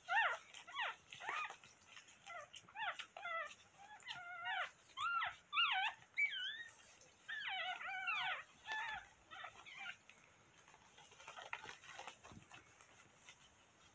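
Newborn Coton de Tulear puppies squealing and whimpering as they are handled: a quick run of short, high cries that bend up and down in pitch. The cries thin out and grow fainter after about nine seconds.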